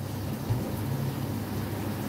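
Ramtons 10 kg twin-tub washing machine spinning clothes, a steady low motor hum. Water from the spin drains out of the hose and spills across a tiled floor.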